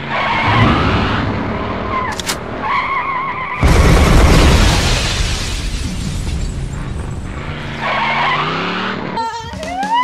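Intro sound effects of a vehicle engine running with wavering tyre squeals, then a sudden loud crash about three and a half seconds in. Near the end the engine rises in pitch, and music comes in.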